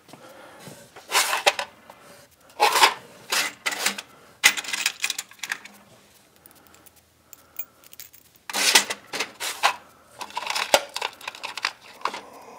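Small steel bolts and lock washers clinking and rattling as a hand rummages through a nut-and-bolt assortment kit, in several short bursts with pauses between.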